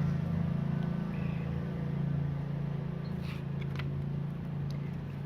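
A steady low hum in the background, with a few faint clicks of handling about three and four seconds in.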